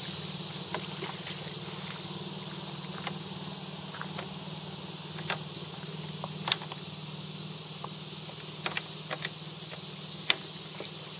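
Steady low engine-like hum under a steady high hiss, with scattered sharp clicks and taps from hands working a rope and the plastic fittings of a kayak, the loudest about 6.5 and 10 seconds in.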